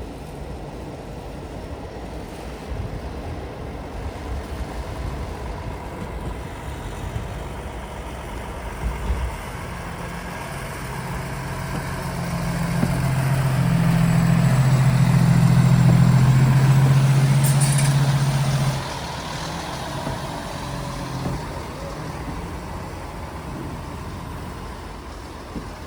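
A vehicle passing close by: it builds up to a loud low hum for several seconds, then drops off abruptly and fades to steady background noise.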